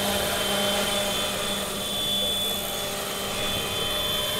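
Electric RC scale helicopter on Align T-Rex 500ESP mechanics, with a three-blade rotor head and a Scorpion brushless motor, in low flight. It runs as a steady high whine over a lower, even hum.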